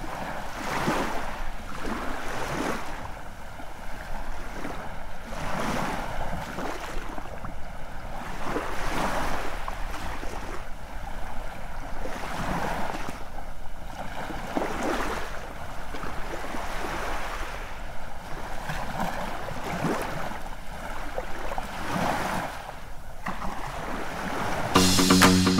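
Sea waves washing onto a beach, a rushing noise that surges and falls again every second or two. Guitar music comes in near the end.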